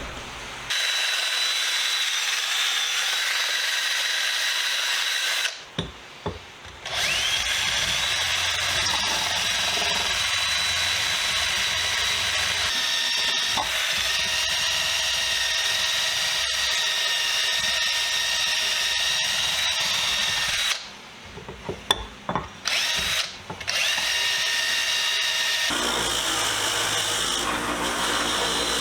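Dremel rotary tool with a small wire brush running at high speed, a steady high whine, as it scrubs rust residue out of a pipe wrench's crevices. It stops briefly twice, about six seconds in and about twenty-one seconds in, and spins back up each time.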